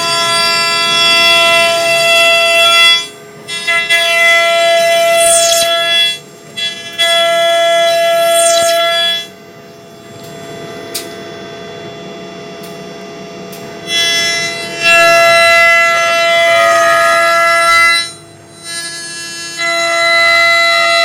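CNC router motors running with a steady whine of several fixed tones. The whine starts and stops in stretches of a few seconds as the machine moves, and drops to a quieter hiss for about five seconds near the middle.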